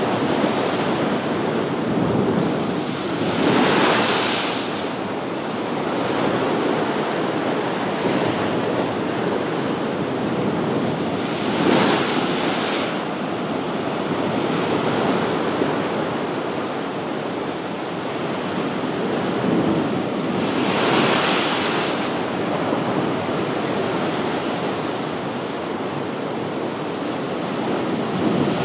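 Sea waves breaking on a rocky shore: a continuous wash of surf, with three louder crashes about eight or nine seconds apart.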